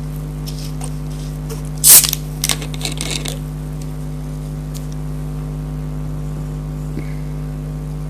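A steady low hum, with one short loud noise about two seconds in followed by a few light clicks.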